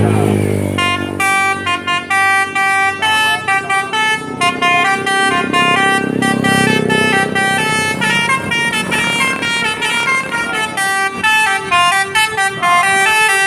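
Basuri multi-tone 'telolet' bus horn playing a rapid melody of short notes stepping up and down, starting about a second in, over the bus's engine rumble.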